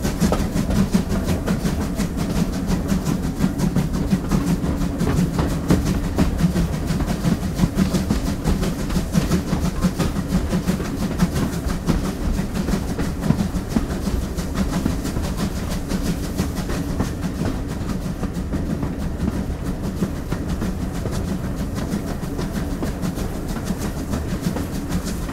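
GWR Collett Goods 0-6-0 steam locomotive running along the line, heard from its side: a steady, rapidly pulsing running noise that eases slightly in the second half.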